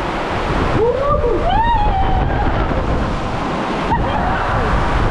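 Water rushing under a raft sliding down a ProSlide Tornado funnel water slide, a steady loud wash. Riders yell and whoop over it, cries that rise and fall in pitch about a second in and again near four seconds.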